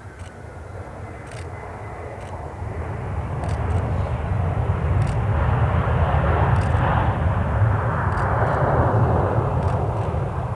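Airliner passing close by, its engine noise swelling to a peak after about six seconds and then easing slightly.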